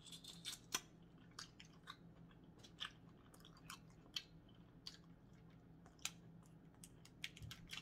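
Faint chewing together with small sharp clicks and crackles of a boiled crawfish shell being cracked and peeled by hand.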